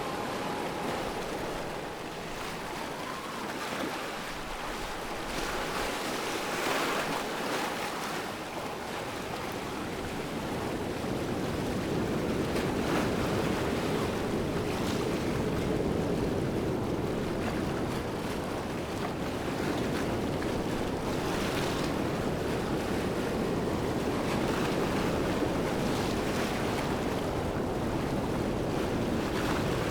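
Waterfall: a steady rush of falling water that grows a little louder and fuller about ten seconds in.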